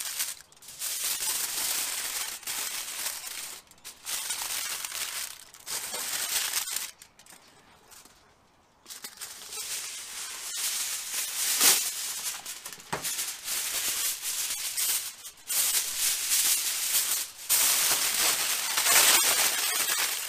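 Aluminium foil crinkling and rustling in bursts as it is folded and scrunched around a piece of meat and a new sheet is pulled off the roll. There are a few sharper crackles and a pause of about two seconds around a third of the way in.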